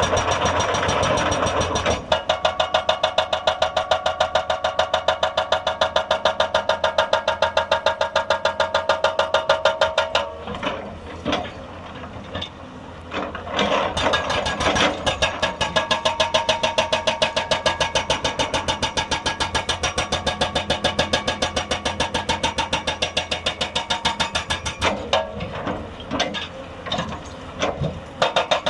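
Hydraulic breaker on a Hyundai 290 excavator hammering rock in a fast, steady stream of blows, with the excavator's engine running under it. The hammering breaks off and turns uneven briefly twice, about ten seconds in and again near the end.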